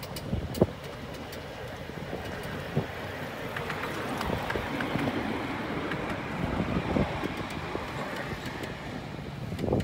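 Ride-on miniature railway train running, its sound swelling in the middle as it passes, with a few sharp knocks and clicks from the wheels on the track and wind on the microphone.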